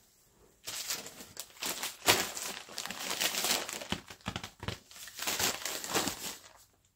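Plastic poly mailer bag crinkling and rustling irregularly as it is picked up and handled.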